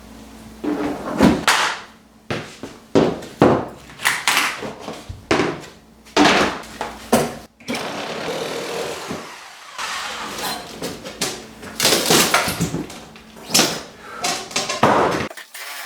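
Kitchen cabinets being demolished: an irregular run of wooden bangs, knocks and clunks as cabinet parts are knocked loose and handled, with a stretch of scraping near the middle.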